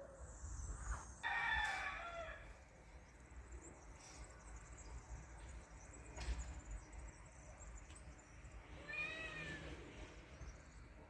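Domestic cat meowing twice to wake its owner: one call about a second in, the louder, and a second, arching call near the end.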